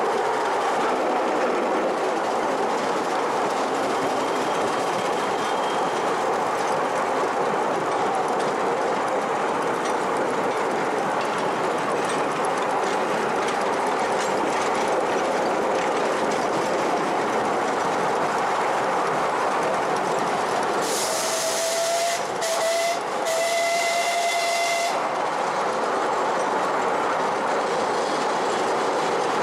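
Miniature steam railway train running with a steady clatter of wheels on the track. About two-thirds of the way through, the steam locomotive's whistle sounds three times with a hiss of steam; the middle blast is short.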